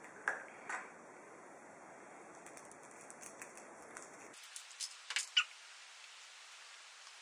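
Small clicks of a plastic Kinder Surprise toy capsule being handled. Then the crinkle and crackle of foil being peeled off a chocolate egg, with a cluster of sharp crackles about five seconds in.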